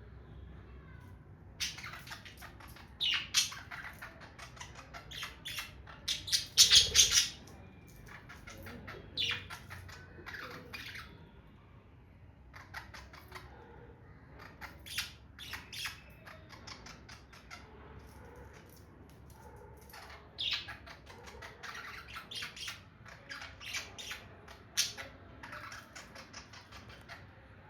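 Pet budgerigars chattering and squawking in quick runs of short, high chirps with quieter gaps between, loudest about six to seven seconds in.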